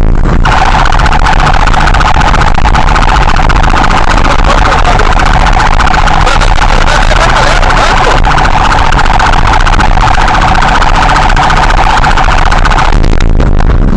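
Patrol-car siren sounding loud and continuously in a fast, pulsing two-tone pattern during a police pursuit. It breaks off briefly about a second before the end. Vehicle engine and road rumble run underneath.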